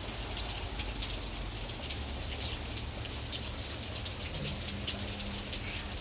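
Heavy rain pouring down, a steady hiss made of many small drop impacts pattering on surfaces. A faint steady low tone joins about two-thirds of the way through.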